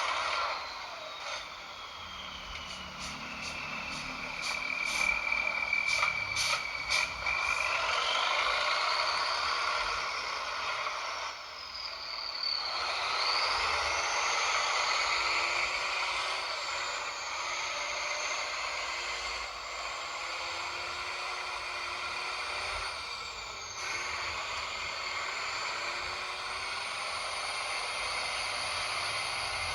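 Electric motor and gearbox of a WPL RC truck whining as it drives, the whine rising and falling in pitch with the throttle over a steady grinding hiss. A run of light ticks comes a few seconds in.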